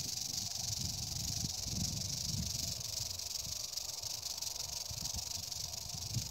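Western diamondback rattlesnake rattling its tail in a steady, unbroken high buzz: the warning of a coiled, defensive snake.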